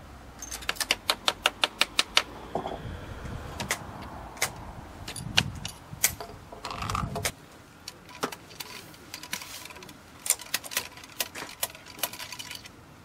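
Sharp clicks and taps of a muzzle-loading rifle being loaded: a short starter is pressed and tapped to force a tight-fitting patched round ball into the muzzle of a .54 flintlock rifle. A quick run of about six taps a second comes about half a second in, then single scattered clicks.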